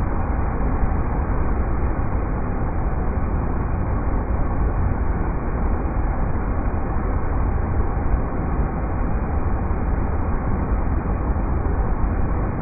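River rapids rushing: a steady, unbroken water noise, heaviest in a deep low rumble.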